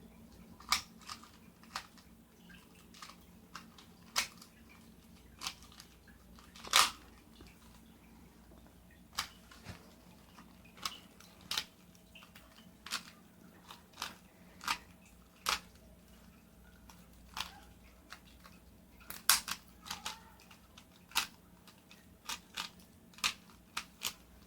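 Rubik's Cube layers being turned fast by hand, giving irregular sharp plastic clicks, one to a few a second, with a louder clack about seven seconds in.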